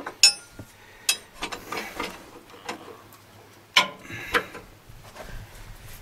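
Scattered metal clicks and knocks of a wrench working the loosened hydraulic drain plug on a Case 580E backhoe. The loudest knock comes about four seconds in.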